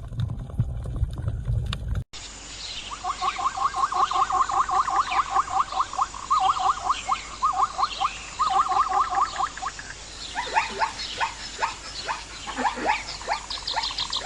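Wild animal calls in two cuts. First a brief low-pitched sound, then after a sudden cut a chorus of rapid, repeated short calls, several a second, joined later by calls that sweep down in pitch.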